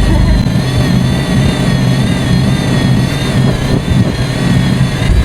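An engine running steadily: a loud low rumble with a thin high whine above it that wavers slightly in pitch.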